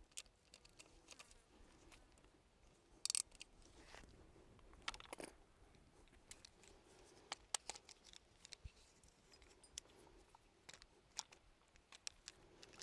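Near silence with faint, scattered clicks and light metallic taps, a few sharper ones about three and five seconds in: small tools and rifle parts being handled as a bipod mount is tightened onto an M-LOK rail with a hand driver.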